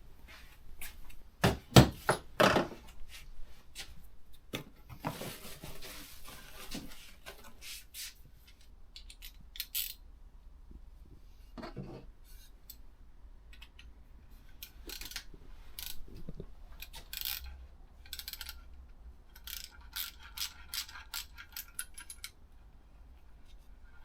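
Clicks, taps and metallic knocks of hand tools and small metal parts being worked at a motorcycle handlebar end while a bar end mirror is fitted, with a few loud knocks about two seconds in and a brief scraping rustle a few seconds later.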